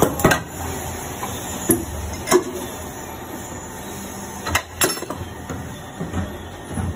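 Injection moulding machine working a 1 ml luer-lock syringe mould: sharp metallic clacks as the mould plates move, a quick pair just after the start, two single ones around two seconds in, and another pair near five seconds, over steady machine noise.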